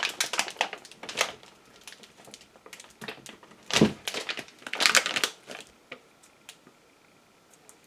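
Hand-handling noises of magnets and their packaging: crinkling, rustling and sharp clicks in a few short bursts, thinning out to scattered ticks and then quiet near the end.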